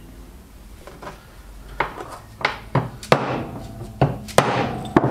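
A series of about seven or eight irregular hammer blows on a universal joint held in a steel bench vise, as its bearing cups and circlips are knocked into place. The later blows are the loudest, some with a brief metallic ring.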